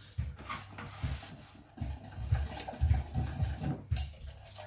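Thin plaster of Paris slurry being mixed in a bowl, with irregular soft knocks and scrapes.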